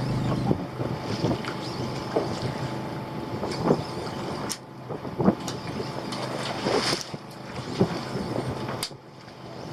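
Fishing boat's engine running steadily, with wind on the microphone and a few sharp knocks and clicks on board.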